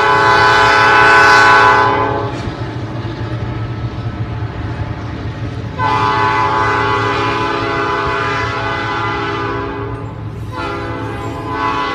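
Ellis & Eastern sand train's diesel locomotive air horn sounding a chord in long blasts: one ending about two seconds in, a longer one from about six to ten seconds, and another starting near the end. Underneath runs the steady low rumble of the loaded hopper cars rolling past on the rails.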